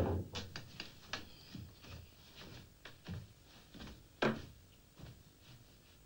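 A series of knocks and taps: a heavy thump at the start, a string of lighter clicks and knocks, and another thump about four seconds in.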